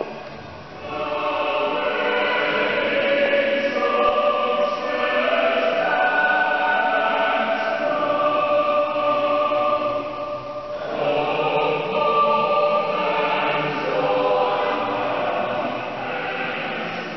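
A choir singing slow, sustained chords, the phrases breaking off briefly about a second in and again just past the middle before the voices come back in.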